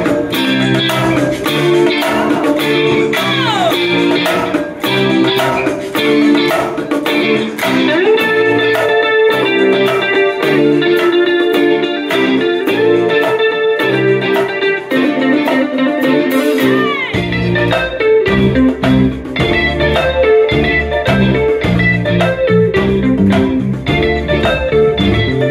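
Live band playing an instrumental number: an electric guitar melody with bent notes over drums and percussion. About seventeen seconds in the low end fills out as the bass joins in.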